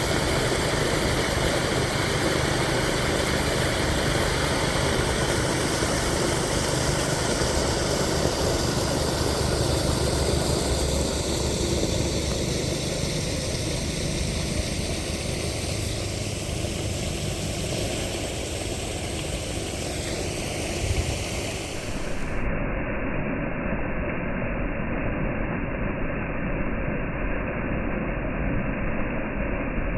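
Stormwater pouring from a drain outlet into a creek: a steady rushing of falling water over a low rumble of freeway traffic. About two-thirds of the way through, the sound abruptly turns muffled, losing all its hiss.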